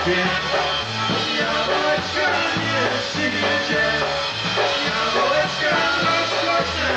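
Live polka band playing a polka, with an evenly alternating bass line under the melody.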